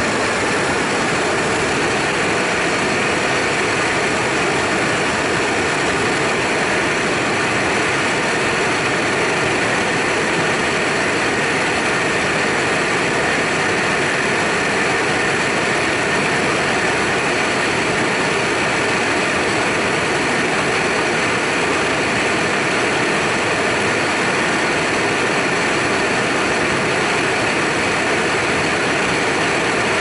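A 500,000 BTU torch burning steadily: a loud, even rush of flame that holds without a break.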